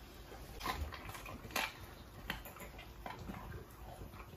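American bully dog chewing raw chicken and fish, with a handful of short chewing clicks and smacks at irregular intervals.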